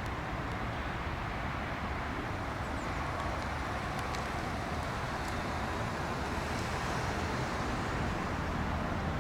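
Jet engines of a Boeing 777-300ER, its GE90 turbofans, heard as a steady rushing roar on approach to landing that slowly grows louder.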